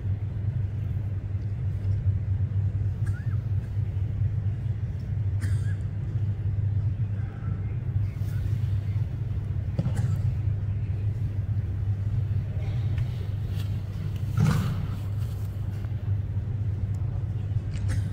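Steady low rumble, with a few faint knocks and a brief louder knock about three quarters of the way through.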